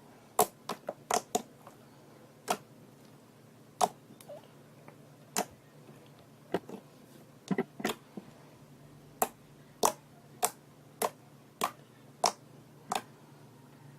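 Slime being pressed and folded by hand, giving sharp clicking pops of trapped air. They come in an uneven cluster at first, then settle to about one every two-thirds of a second near the end.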